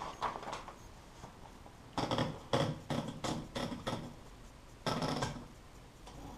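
Keys of a 1967 Hermes 3000 manual typewriter striking the platen during a typing test: a couple of single strokes, then a quick run of about seven keystrokes in the middle, and a longer, noisier stroke near the end.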